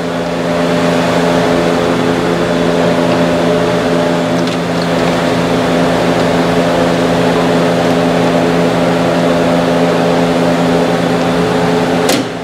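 Steady machine hum at one unchanging pitch, running loud and even throughout, with a sharp click near the end.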